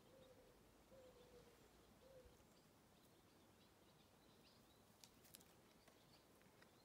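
Near silence with faint birdsong: a soft low warbling call in the first two seconds and a few thin high chirps. Two faint clicks come about five seconds in.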